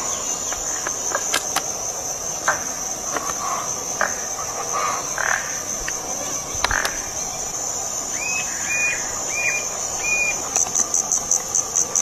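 Insects trilling in one steady high drone that breaks into quick pulses near the end, with four short chirps about two-thirds of the way through.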